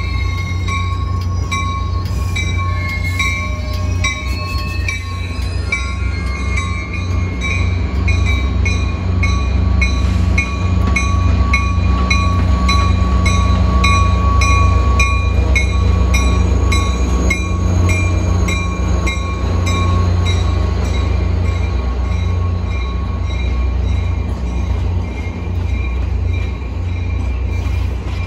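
Caltrain F40PH diesel-electric locomotive running as it hauls a train of bilevel passenger cars past, its engine a steady low rumble that is loudest as the locomotive goes by about halfway through. A bell rings steadily about twice a second, with a steady whine over it.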